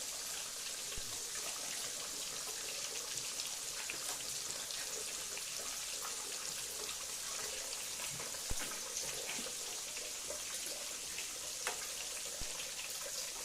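Stuffed tofu deep-frying in hot oil: a steady high sizzle with scattered crackles and a few sharper pops.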